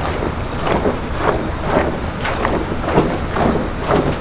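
Wet splashing and squelching as gloved hands churn a basin packed with live mud loaches in foamy water, in rhythmic strokes about twice a second over a steady low rumble.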